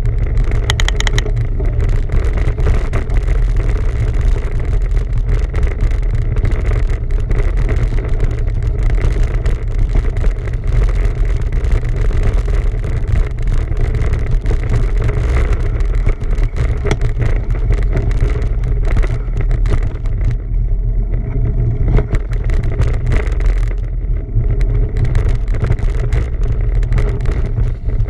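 Steady wind rumble on the microphone while riding a bicycle, a continuous low roar with no breaks.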